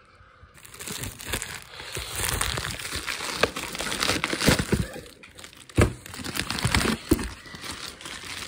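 Plastic bubble-wrap packaging crinkling and rustling as a part is unwrapped by hand, with a few sharp knocks from handling, the loudest about six seconds in.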